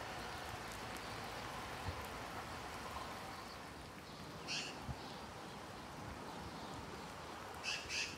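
Faint, steady outdoor background hiss, broken by a couple of short high chirps about halfway through and again near the end.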